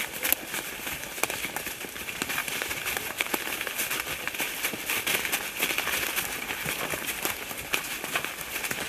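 Horses and people walking over dry leaf litter and twigs on a forest floor: a constant rustle with many irregular crunches, cracks and hoof falls.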